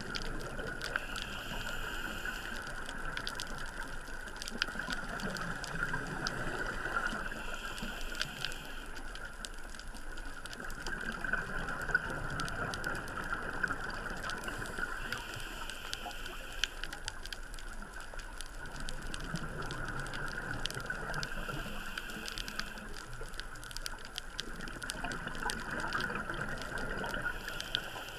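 Underwater sound of a scuba diver breathing through a regulator: a rush of exhaled bubbles about every six to seven seconds, over a steady water hiss with scattered faint clicks.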